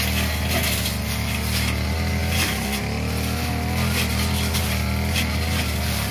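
Two-stroke 328 brush cutter running steadily at cutting speed, its short blade slashing through tall grass and weeds, with small hits and rustles as stems are cut.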